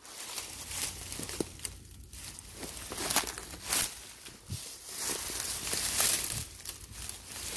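Irregular rustling and crackling of dry leaf litter, like footsteps and movement through the forest floor.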